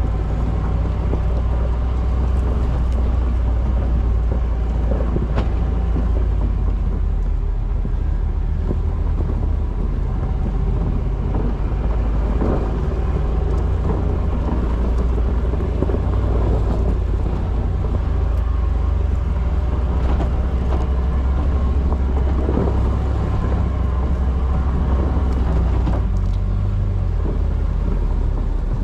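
Jeep Wrangler engine and exhaust running low and steady as it crawls along the trail, the pitch of the rumble shifting a couple of times.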